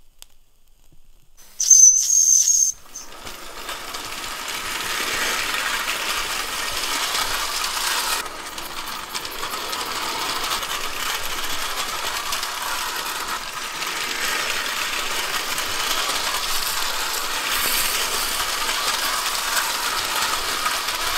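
1920s Bing live-steam toy locomotive: a short, high steady whistle blast about two seconds in, then the steady hiss of steam and the light clatter of the engine running on metal track.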